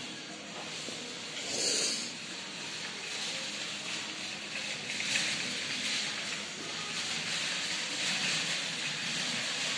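Steady hiss-like background noise of a shopping centre, with a brief louder noise just under two seconds in.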